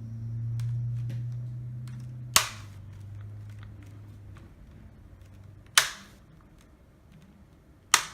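Plastic laptop screen bezel clips snapping into place as the bezel is pressed around the display: three loud sharp snaps a few seconds apart, with faint small clicks of the plastic between them.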